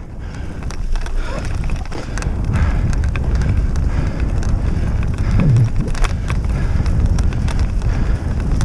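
Wind buffeting a head-mounted camera microphone and a wheeled dog rig rattling over a rough grass track as two huskies pull at speed, building over the first couple of seconds, with scattered knocks from bumps in the ground.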